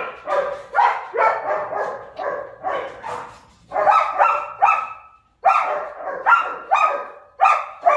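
A dog barking repeatedly in short, fairly high-pitched barks, about two to three a second, with a brief break about five seconds in.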